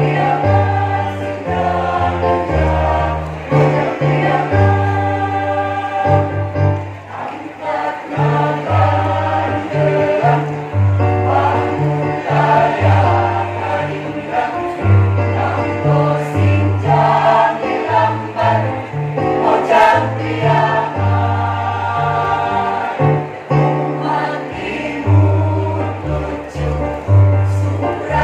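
A women's choir singing a march-like song in several parts, with a low bass line of held notes stepping from pitch to pitch beneath the voices.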